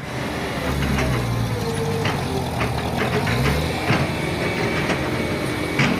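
A steady, engine-like low rumble with a handful of sharp clicks over it.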